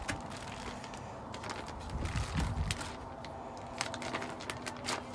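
Clear plastic bags rustling and crinkling in scattered sharp crackles as salmon fillets are packed into them by hand, over a faint steady hum.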